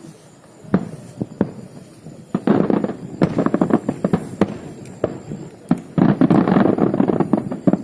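Fireworks going off: scattered single bangs, with two dense runs of rapid crackling, the first about two and a half seconds in and the second near the end.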